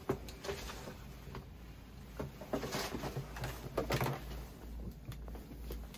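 Quiet handling noises: a sharp click right at the start, then a few brief rustles and knocks.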